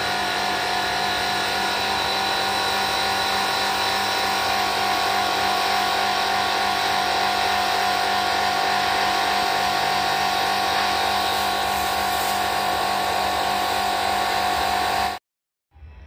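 Electric high-pressure washer pump running steadily with a whine, its water jet spraying into a ceiling cassette air conditioner's evaporator during cleaning. It cuts off abruptly near the end.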